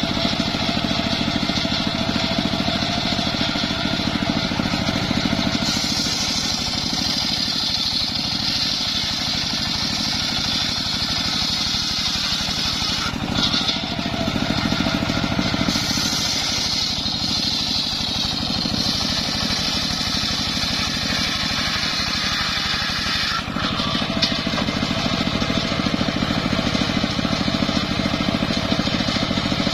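Homemade engine-driven circular sawmill running steadily while its blade rips lengthwise through logs to make rafters. The engine's low drone is steady throughout, and the higher sound of the blade in the wood rises over it for stretches of several seconds at a time, with short breaks between cuts.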